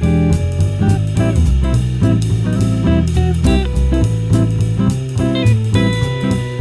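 Background music: guitar-led instrumental with a drum kit keeping a steady beat.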